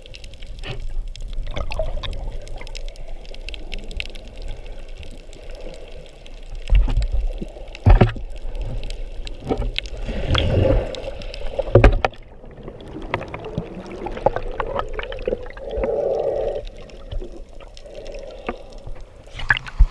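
Water sloshing and gurgling around the microphone during a free dive, broken by several sharp knocks.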